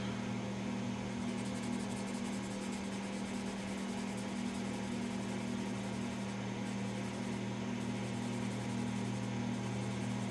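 A steady low mechanical hum with even hiss in the room, under faint rubbing of a polishing rag on a small brass knob.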